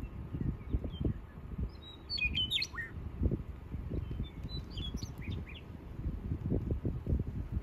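Wind buffeting the microphone in uneven gusts, with a bird chirping in two short runs of quick calls, about two and about four seconds in.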